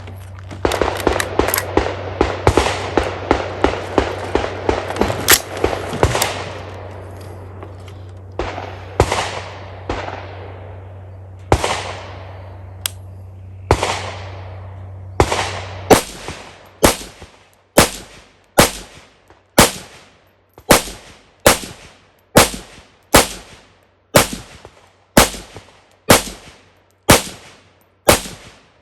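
Semi-automatic rifle firing steel-cased Wolf ammunition from a 30-round magazine, each shot echoing. A dense run of shots comes first, then single shots a second or two apart, and in the second half a steady string of about one shot every 0.7 s. The rifle runs without a stoppage.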